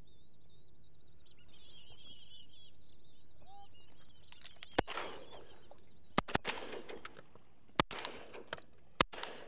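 A flock of ducks calling overhead with high, wavering calls, then shotgun fire starts about five seconds in: about six sharp shots over the next four seconds, some in quick pairs.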